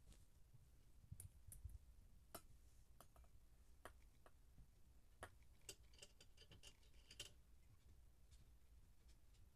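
Near silence with faint, irregular clicks and taps of kittens playing, their paws and claws on carpet and small objects, and a quick run of clicks about six to seven seconds in.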